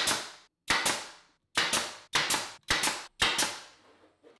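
Pneumatic brad nailer firing six or so times, roughly every half second, driving nails through a wood block into a desk frame. Each shot is a sharp crack that trails off quickly.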